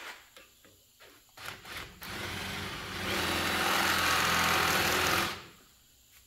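Electric drill with a larger bit chamfering the edge of a freshly tapped bolt hole in metal. After a few light clicks, the drill starts about two seconds in, gets louder about a second later as the bit bites, and then stops.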